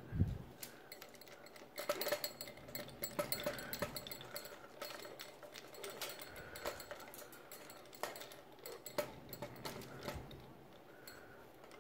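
Irregular small clicks, taps and rattles of plastic and wooden toys on a parrot cage's wicker ring as an Indian ringneck parrot climbs over them and they are handled.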